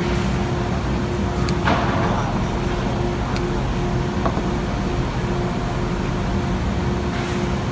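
Steady background hum and noise, with two sharp clicks and a short scrape as a knife blade is worked along the wooden bead molding of a door panel.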